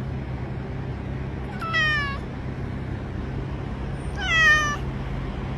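A cat meowing twice, about two seconds in and again near the end, each meow falling in pitch, over a steady low hum.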